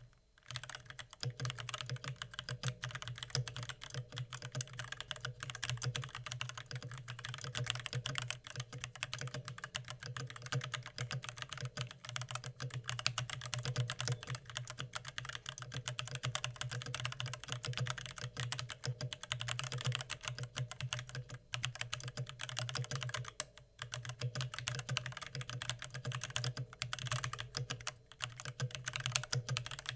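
Fast typing on a mechanical keyboard at about 92 words per minute: a dense, rapid run of keystroke clicks with a couple of brief pauses.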